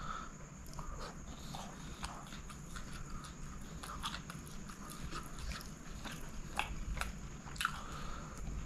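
Close-miked chewing of chicken kottu roti eaten by hand: wet mouth smacks and many short, sharp clicks from the lips and teeth, with a little squish of the food in the fingers.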